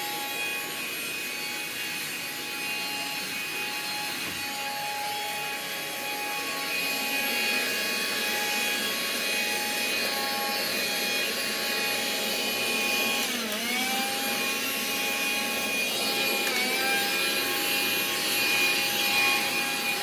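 Black & Decker handheld vacuum running steadily while sucking up fake snow from a doormat, with a whining motor tone. Twice in the second half its pitch dips briefly and recovers.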